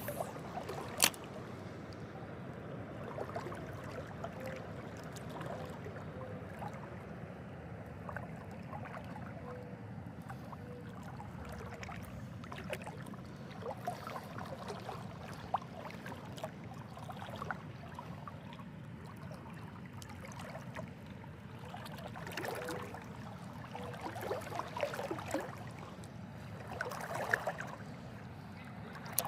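River water sloshing and trickling, with scattered small splashes and knocks that come more often in the last several seconds.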